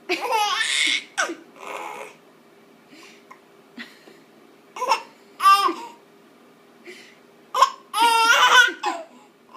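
A ten-month-old baby boy laughing at his own hiccups in several short high-pitched bursts of giggling, with quieter short sounds between them.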